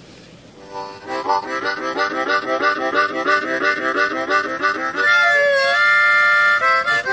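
Harmonica played starting about a second in: quick, rhythmic alternating chords, then a long held chord with a note bent down and back, then short notes near the end.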